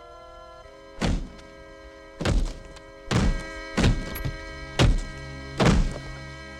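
Six heavy thuds, roughly a second apart and slightly uneven, over a sustained, slow-moving film score.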